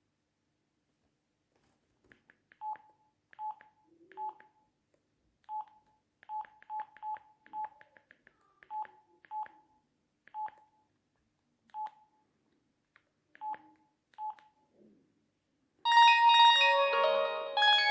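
Sony Ericsson J110i key beeps: about fourteen short, single-pitched beeps with faint button clicks, irregularly spaced as keys are pressed. About two seconds before the end a ringtone starts playing loudly, a polyphonic melody.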